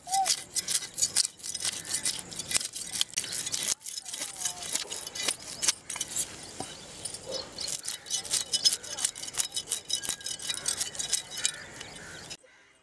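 A large curved metal blade scraping the scales off a whole rohu fish: a fast, dense run of crisp scratches and clicks as the scales flake off. It stops abruptly near the end.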